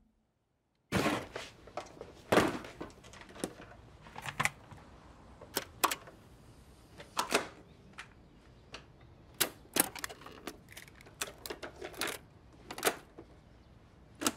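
Scattered plastic clicks and clunks from a cassette being handled and loaded into a Sony CD/cassette boombox and its keys being pressed, irregularly spaced, starting about a second in.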